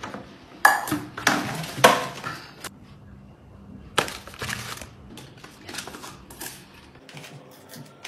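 Paper bag and cardboard fries cartons rustling and crinkling as they are handled. There are loud noisy bursts in the first few seconds and again about four seconds in, then lighter crackles and ticks.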